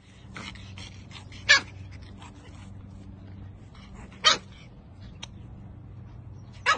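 Pug puppy giving three short yips, spaced a couple of seconds apart, over a faint steady hum.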